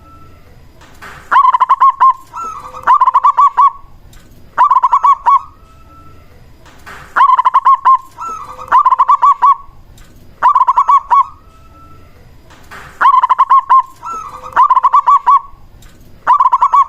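Zebra dove (perkutut) singing: loud phrases of rapid, staccato cooing notes, each about a second long, repeated every second or two, about nine times.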